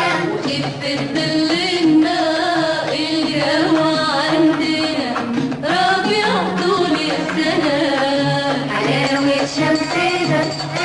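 Arabic song with a melody line and percussion, a steady beat throughout.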